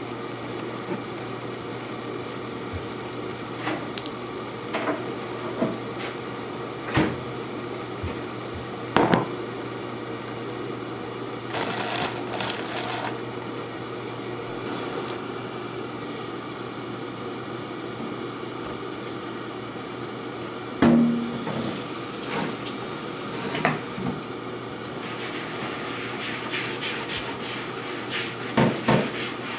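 Kitchen clatter: scattered knocks and clinks over a steady background hum, with two brief hissing noises, one about twelve seconds in and one a little after twenty seconds.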